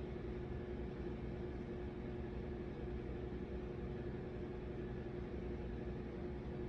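Steady background hum with a constant tone and a low hiss underneath: room tone from something running, like a fan or appliance. It stays even throughout.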